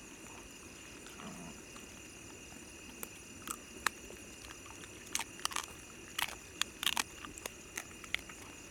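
A run of sharp crunches and clicks, clustered from about three to eight seconds in, over a faint steady high-pitched drone.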